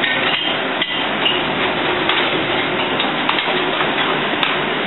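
Busy restaurant kitchen: a steady rush of noise with scattered knocks and clinks of pans and utensils, a sharp click near the end.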